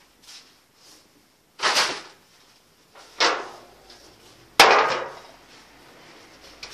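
Metal baking trays clattering as they are handled: three loud knocks about a second and a half apart, each dying away within half a second.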